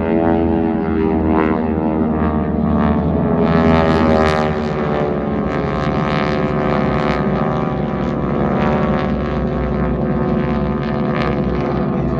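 Several propeller airplanes flying overhead in formation, their engines droning loudly, with the pitch slowly sliding down as they pass and rising again near the end.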